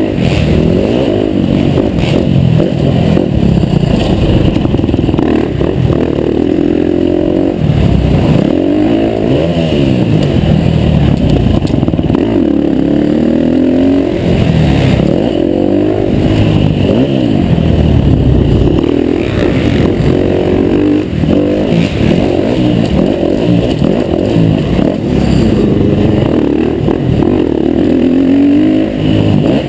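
KTM 350 four-stroke dirt bike engine ridden hard, revving up and backing off again and again as it accelerates and slows, with a few short knocks along the way.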